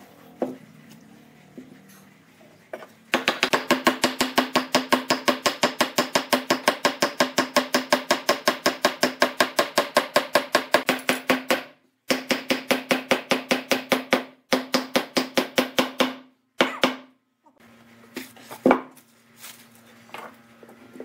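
Rapid, even tapping on wood, about five strikes a second, in several runs that stop abruptly, consistent with a mallet knocking glued slats into a slotted wooden block.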